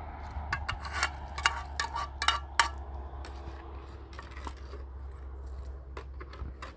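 Kitchenware clinking: a quick run of light, sharp clinks over the first three seconds, then a few scattered ones, over a steady low hum.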